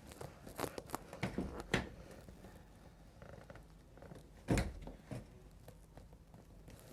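Soft clicks and knocks of a patient and chiropractor shifting on a chiropractic treatment table, with one louder thump about four and a half seconds in.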